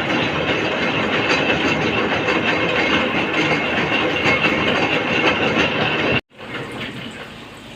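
Metalworking machine running loud and steady with a dense clattering noise. It cuts off abruptly about six seconds in, and a much quieter mechanical sound follows.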